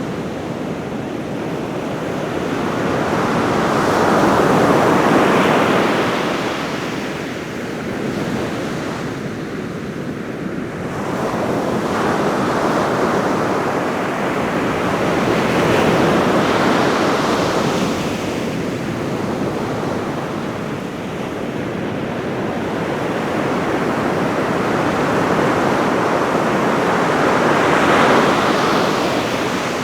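Ocean waves breaking on a beach in a calm sea, blending into a continuous wash much like brown noise. The surf swells louder three times, about a dozen seconds apart.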